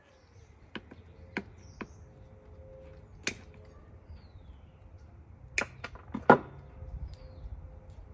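Scissors snipping through succulent stems: a series of separate sharp clicks at irregular intervals, the loudest about six seconds in.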